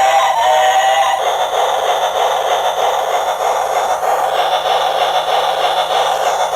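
A battery-powered toy's electronic tune ends about a second in. It gives way to a steady whirring hum, like a small toy motor running.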